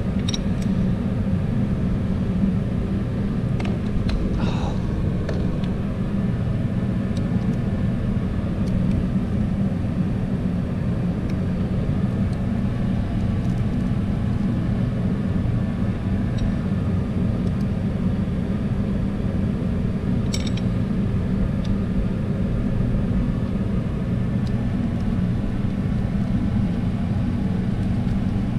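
A steady low machine drone runs without change, with a few faint metallic clicks and taps from hand tools during valve lash adjustment.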